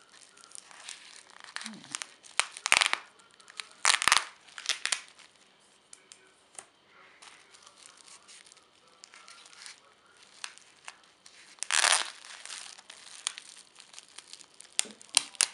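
Household tape being peeled off a bubble-wrap pouch, with the plastic bubble wrap crinkling and crackling as it is handled. It comes in irregular bursts, the loudest tearing and crinkling about 3 and 4 seconds in and again around 12 seconds.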